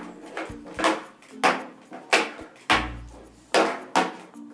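Small plastic slime tubs being flipped and landing on a table, a quick run of sharp knocks and clatters about two a second.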